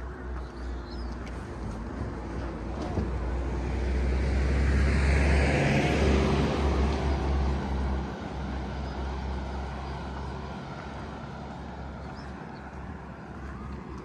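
A car driving past: its tyre and engine noise swells to a peak about five to seven seconds in and falls away around eight seconds in.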